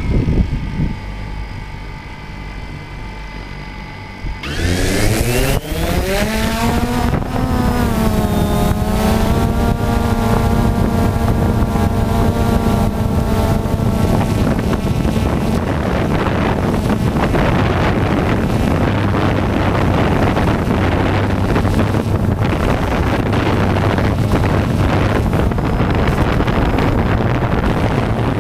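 Quadcopter's electric motors and propellers, heard from the camera on board. The motors spin up to idle, then about four seconds in climb sharply in pitch as it lifts off. They settle into a steady whine of several tones while hovering and climbing, with wind rushing over the microphone.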